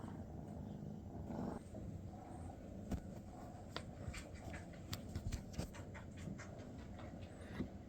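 Maine Coon cat purring steadily and low, with a run of small sharp clicks and taps from about three seconds in until near the end.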